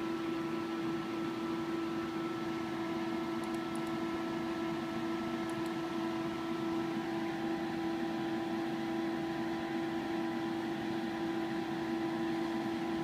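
Steady hum of laboratory equipment: a constant mid-pitched tone with fainter higher tones over a light hiss. One of the higher tones drops out about halfway through.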